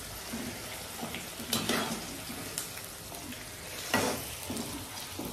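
Sliced onions deep-frying in oil in an iron kadhai, a steady sizzle, being fried until crispy. A metal spoon stirring them knocks and scrapes against the pan a few times, loudest about four seconds in.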